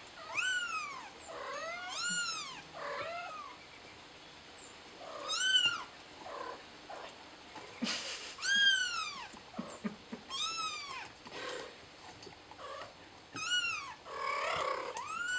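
Kitten mewing over and over: about ten high-pitched cries that each rise and fall in pitch, with a few lower, shorter mews between them.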